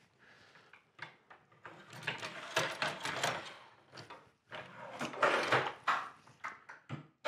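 Aluminium guide rail being slid into place and clamped on a wooden tabletop: two stretches of scraping and rattling with small clicks and knocks.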